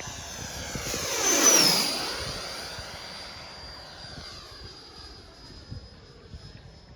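Radio-controlled L-39 model jet making a fast pass: its high whine and rush of air build to a peak about a second and a half in, the whine dropping in pitch as it goes by, then fading away.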